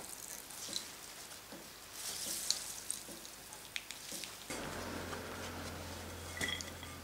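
Water from blended pumpkin pulp, wrung in a cloth tea towel, trickling and dripping into a ceramic bowl, with soft cloth rustling and a few small clicks. It is faint throughout, and a low steady hum comes in about four and a half seconds in.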